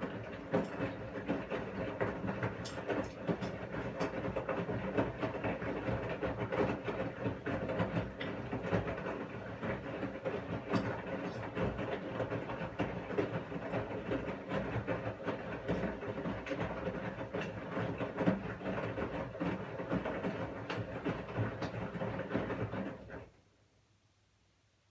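Washing machine drum turning its load: a steady churning hum with many small clicks and knocks, which stops abruptly near the end as the drum pauses between turns.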